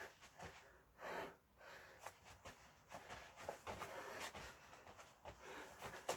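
A person breathing hard from exertion: a faint, irregular series of breaths and exhalations.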